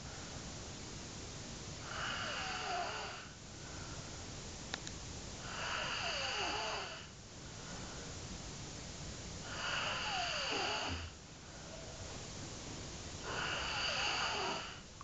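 A man snoring loudly in his sleep: four long snores about four seconds apart, each with a whistling tone that falls in pitch.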